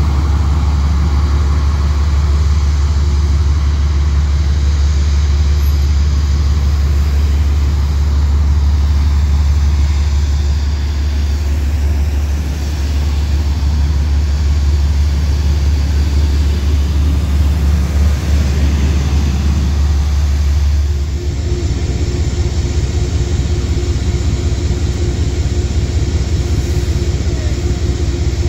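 Road traffic with transit buses and cars moving, under a steady, heavy low rumble.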